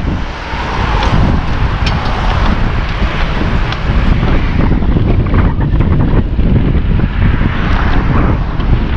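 Wind buffeting the microphone of a moving bicycle rider, a steady low rumble, with road traffic passing alongside.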